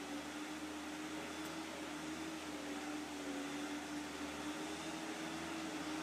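Case 430 skid steer's engine running steadily a long way off, a faint, even hum.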